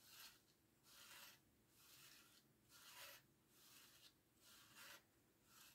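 Paper of a Vojtěch Kubašta pop-up book rubbing and sliding as a movable element is worked back and forth by hand: faint, rhythmic rustling strokes, about seven of them, roughly one every 0.8 seconds.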